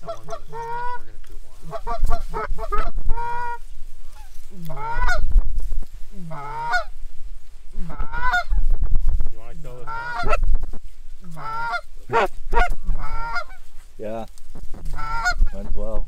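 Canada geese honking loudly and repeatedly, about one honk every second and a half, each breaking from a low note up into a higher one, with a low wind rumble underneath.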